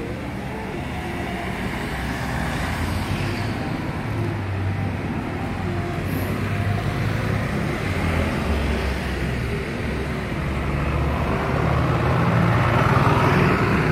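Road traffic: vehicle engines and tyres rumbling past, growing louder toward the end as a vehicle comes near.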